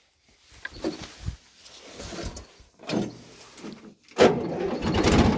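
A few clunks and rattles of handling on the tractor, then about four seconds in the tractor's diesel engine starts suddenly and runs with a steady, rapid beat. It is being started to drive a freshly primed water pump.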